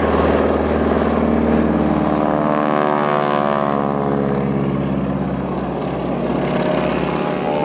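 Radial engine and propeller of a biplane making a low pass, running steadily; its note falls in pitch a few seconds in as the plane passes and moves away.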